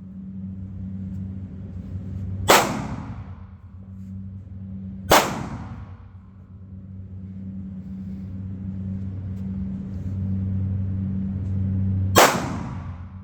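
Three single gunshots, each a sharp crack with a short ringing tail: two close together, about 2.5 and 5 seconds in, and one near the end. A steady low hum runs underneath.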